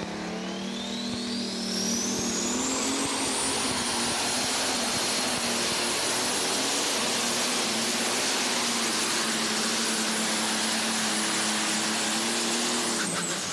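Turbocharged super stock diesel pulling tractor engine at full power under load during a pull. A high turbo whine rises in pitch over the first few seconds, then holds a steady scream. Near the end the engine drops off as the driver lets off.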